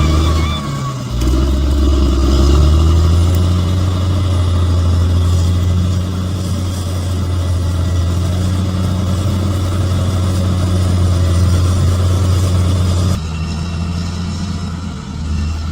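Bulldozer's diesel engine running steadily under load, a deep drone that dips briefly about a second in and drops suddenly in level near the end.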